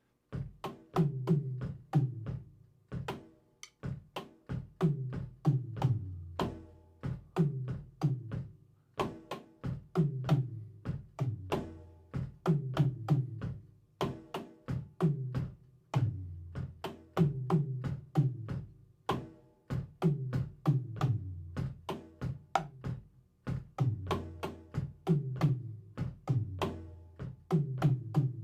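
Acoustic drum kit played in a steady groove, several strokes a second. The low drums and the sharper snare and cymbal hits fall into a pattern that repeats about every two seconds.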